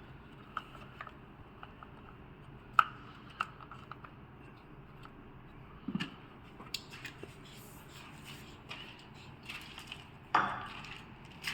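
Scattered light metallic clinks and taps over a faint steady low hum, with a sharper knock about three seconds in and another near the end.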